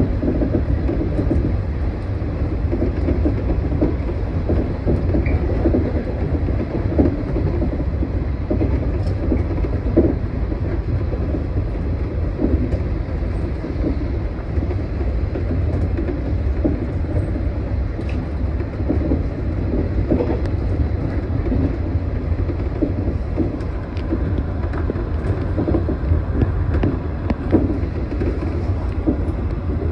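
115-series electric multiple unit running along the line, heard from inside the cab: a steady low rumble of wheels and running gear with scattered light clicks.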